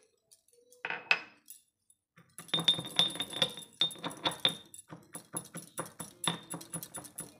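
Green peas tipped from a glass bowl into a stone mortar with a short rattle, then a stone pestle pounding them in quick, sharp clinks, several strokes a second, crushing the peas coarsely.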